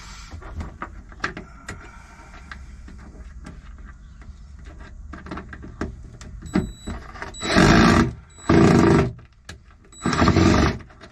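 Cordless drill-driver running in three short bursts, driving stainless steel screws, with small clicks and knocks of parts being handled before the first burst.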